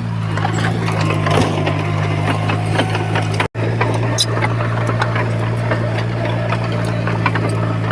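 Heavy construction machinery's diesel engine running steadily, with metallic clanking and rattling over it. The sound cuts out for an instant about halfway through.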